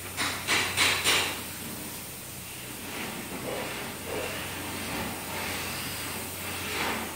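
Paint spray gun spraying stain onto a wooden floor: four short, loud hissing bursts in the first second or so, a fainter hiss through the middle, and another burst near the end.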